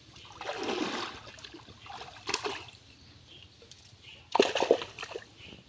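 Hands splashing and sloshing in shallow muddy pond water while groping for fish by hand, in three bursts: about half a second in, near two and a half seconds, and the loudest at about four and a half seconds.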